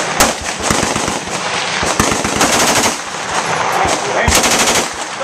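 Full-automatic gunfire from machine guns on a shared firing line: short bursts and scattered single shots, with the densest burst a little after four seconds in.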